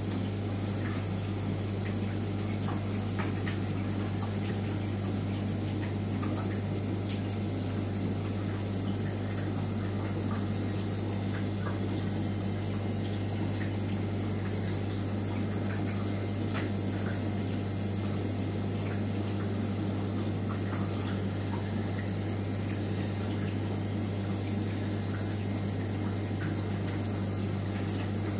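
Aquarium pump running with a steady low hum over a constant trickle of water.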